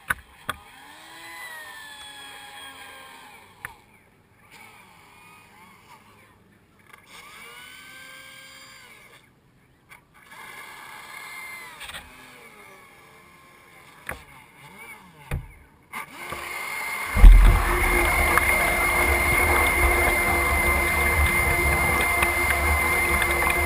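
Quiet at first, then about seventeen seconds in a radio-controlled boat's electric motor and propeller start up with a sudden loud burst and run on with a steady high whine, over low wind rumble on the microphone.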